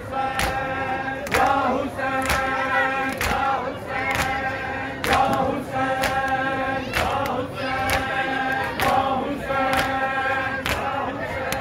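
Men's voices reciting a Shia noha (Muharram lament) in chorus to a chant-like melody, over rhythmic matam: many hands slapping bare chests in unison about once a second.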